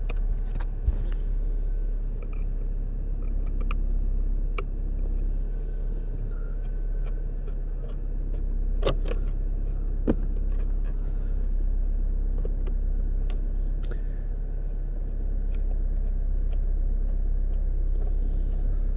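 A flathead screwdriver prying and twisting a stuck screw out of plastic trim, with a few sharp clicks and small scrapes, over a steady low rumble.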